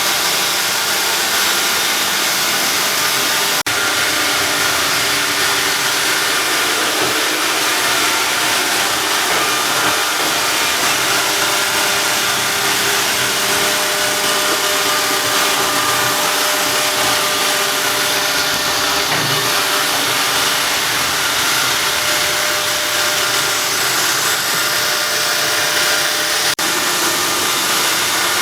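iRobot Roomba robot vacuum cleaner running, a steady whir with a few constant tones from its motors.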